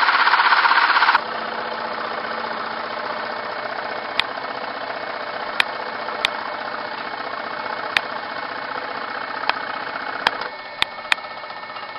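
Homemade scroll saw running, its blade reciprocating through sheet material: a loud rasping buzz for about the first second, then a steadier, quieter motor buzz. Sharp ticks come through it about eight times, irregularly.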